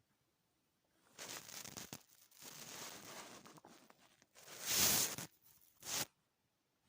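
Stomach rumbling picked up close to the microphone: four rough, crackly bursts of noise, the loudest about five seconds in.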